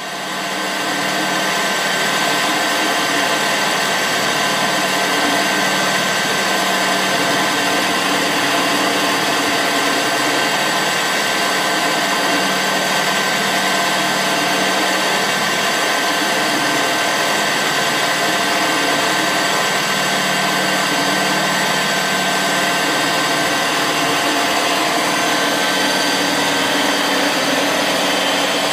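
Mazak CNC lathe running its right-angle live tool, a ball endmill milling small step-over cuts into an aluminium shaft. It makes a steady machine whine of several fixed tones over a constant hiss.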